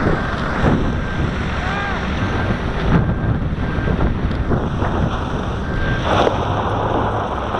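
Fire tanker driving along a road, heard from inside the cab: a steady rush of engine, tyre and wind noise.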